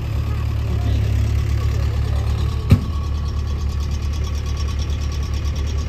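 Sany SY75C excavator's diesel engine idling steadily with a low, evenly pulsing rumble. A single sharp knock comes a little before halfway through.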